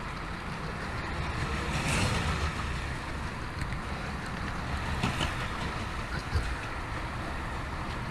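HO scale model diesel locomotive running on track: a steady rumble of motor and wheels on rail, with a few small clicks.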